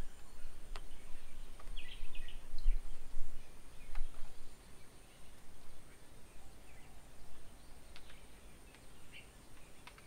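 Outdoor rural ambience: scattered short bird chirps, strongest about two seconds in, over a faint steady high whine and low wind rumble on the microphone that eases off after the first half. A few sharp clicks stand out.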